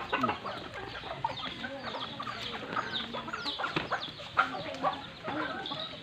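Chickens clucking, with many short, overlapping calls throughout.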